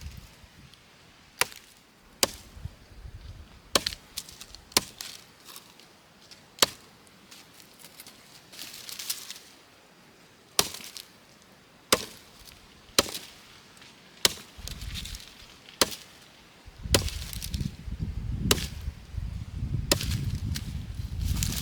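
Chopping: sharp single strikes coming irregularly, roughly one every one to two seconds, with a low rumbling noise joining about two-thirds of the way in.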